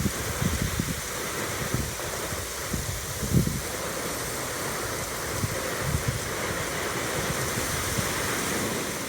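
Autumn wind blowing in a steady rushing hiss, with irregular gusts buffeting the microphone as low rumbles, one stronger gust about three and a half seconds in.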